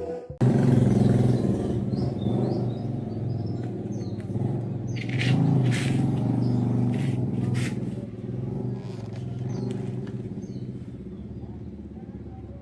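A motor engine running with a steady low hum that starts suddenly, swells briefly and then slowly fades, with birds chirping and a few short rustling noises over it.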